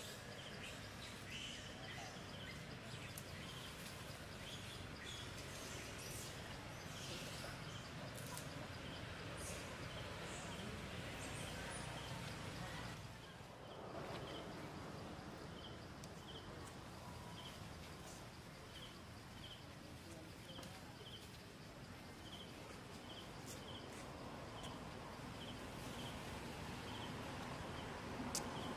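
Outdoor tree-canopy ambience: a faint short high chirp repeats about once or twice a second over a steady background hiss, with scattered light clicks and rustles.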